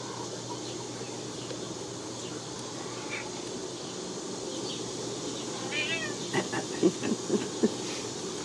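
A Ragdoll cat gives a short meow about six seconds in, over a steady background hiss. Right after it come about four sharp knocks, louder than the meow.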